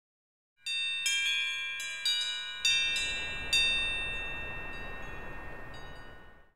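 Short musical logo sting: about five bright chime-like struck notes ringing over one another. A wash of noise swells beneath them from about halfway in, and the whole sting fades out near the end.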